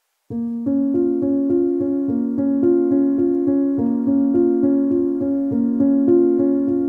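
Background piano music starting just after a brief moment of silence, a steady run of repeating notes.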